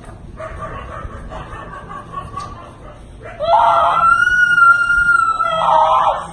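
A boy screaming in pain during a bone-setting manipulation: quieter crying at first, then about three and a half seconds in a loud, high-pitched scream that jumps up in pitch and is held for nearly three seconds.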